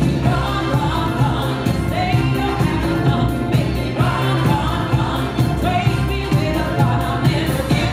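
Dance-battle music played by the DJ: a song with singing over a steady beat.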